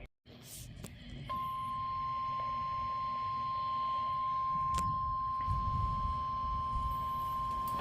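NOAA Weather Radio warning alarm tone: a single steady beep, starting about a second in and held without a break, announcing a tornado warning.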